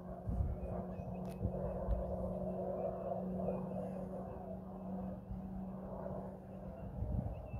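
Distant aircraft engine droning steadily, a low hum that swells slightly a few seconds in.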